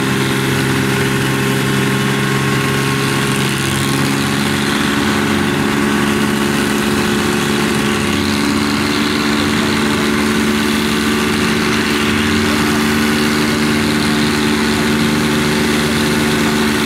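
Diesel engines of rice combine harvesters running steadily at idle; the engine note shifts a little about four seconds in.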